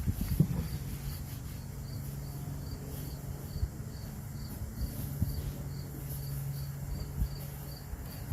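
Crickets chirping in an even rhythm, about two to three chirps a second, over a low hum that weakens around three seconds in and comes back about five seconds in.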